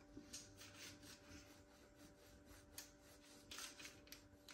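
Faint, soft scraping strokes of a sharp kitchen knife scoring the tops of risen semolina bread rolls on a parchment-lined baking tray.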